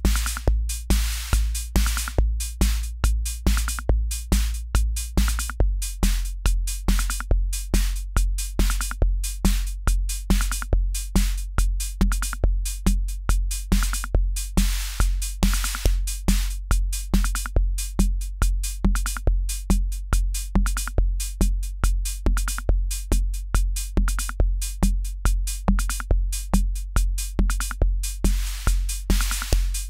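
Akai Rhythm Wolf analogue drum machine playing a raw loop: a kick on every beat about twice a second with bright hi-hat hits between, over a low bass tone that drops lower about six seconds in.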